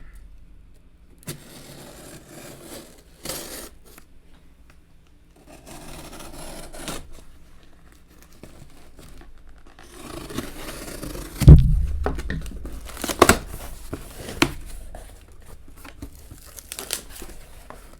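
A cardboard shipping box being opened by hand: tape tearing and packing material crinkling in irregular stretches. A loud thump comes about two-thirds of the way through, followed by a few sharp clicks.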